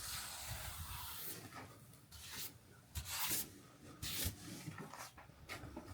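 Rough scraping and crunching of snow in several short strokes with pauses between.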